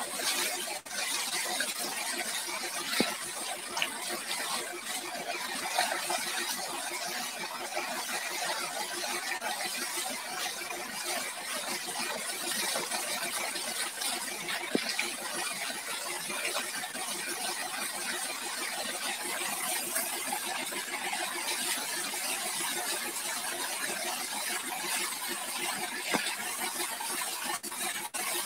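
Water jet from a hose spraying onto a tractor-mounted rotavator, a steady hiss.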